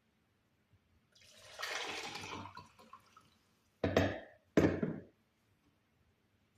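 Water poured into a saucepan for about two seconds, then two loud knocks of kitchenware being set down about a second apart.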